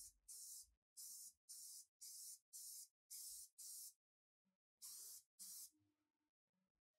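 Short hissing strokes, mostly in pairs, starting and stopping irregularly with a pause near the middle.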